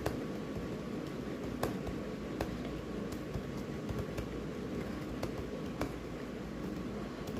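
Scattered, irregular keyboard key clicks over a steady low background hum.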